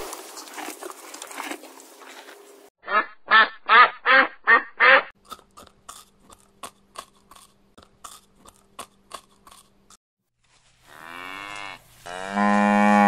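A run of animal sounds. First comes a quick series of six loud pitched calls. Then a rabbit chews cabbage leaves, crunching about three times a second. Near the end comes a drawn-out call that bends in pitch and then holds loud and steady.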